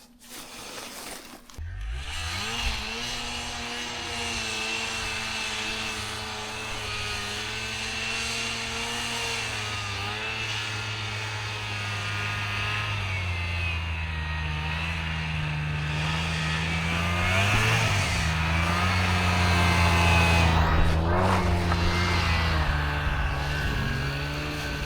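A small vehicle engine starts about two seconds in and keeps running, with a high whine above it. Its pitch shifts down and up several times as it is throttled and driven.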